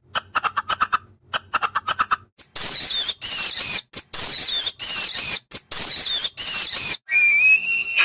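Southern Amazon red squirrel chattering in quick trains of sharp chirps, then a Peruvian viscacha giving a rapid series of high, falling whistles. Near the end a different, rising call begins.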